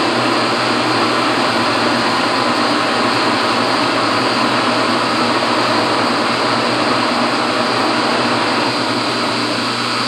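Restored 1956 Axelson metal lathe running steadily while single-point threading, a constant mechanical hum with a faint whine.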